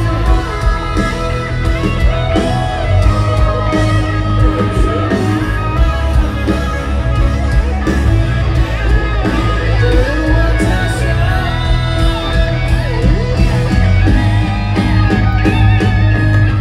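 Live band music played loud over a concert PA: electric guitar, heavy bass and singing.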